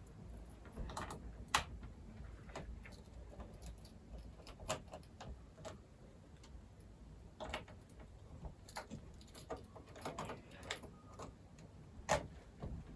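Scattered small clicks and light metallic clinks from a small screwdriver and other tools being handled on a laptop's case while its screws are taken out, with a few sharper taps about a second and a half in, about halfway through and near the end.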